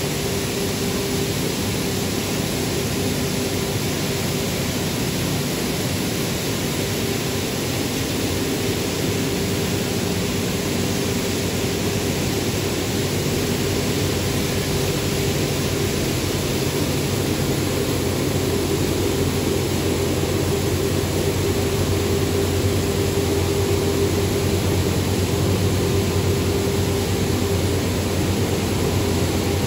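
Steady industrial din of a plastic-recycling washing line running: electric motors, mixers and screw conveyors together, with a constant low hum and a steady higher tone under an even noise. It gets a little louder past the midpoint.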